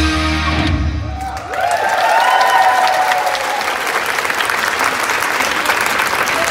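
Live stage music ends about a second in, and the audience breaks into applause, with a voice calling out over it shortly after.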